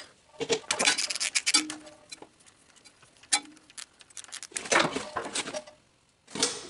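Socket ratchet clicking in quick runs, twice, as it backs a spark plug out of a Briggs & Stratton mower engine's cylinder head, with a few single metallic clicks between.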